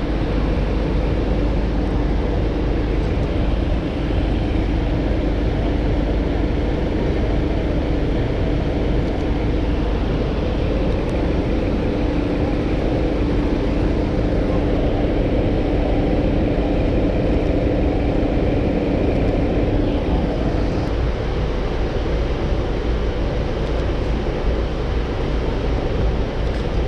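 Steady city street traffic noise with a low rumble, and a steady drone that stops about twenty seconds in.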